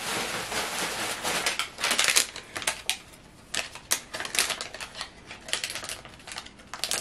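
A crumpled paper slip being rummaged for and unfolded by hand: rustling for about the first two seconds, then irregular sharp crinkling and crackling of the paper.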